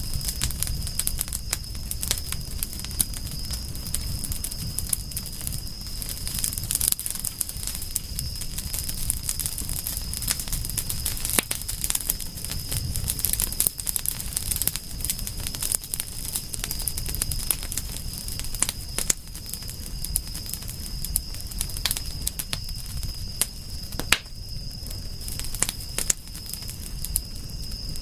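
Wood fire crackling, with many irregular sharp pops and snaps over a low rumble of the flames. A steady high-pitched tone runs underneath throughout.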